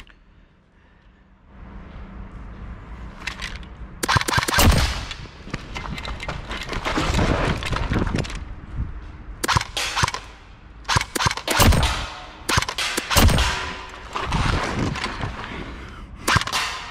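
Several bursts of rapid automatic gunfire, starting about four seconds in and recurring every second or two.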